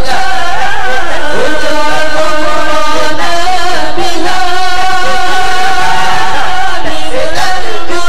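A slow, ornamented chant of an Islamic supplication (doa), sung in long, wavering held notes.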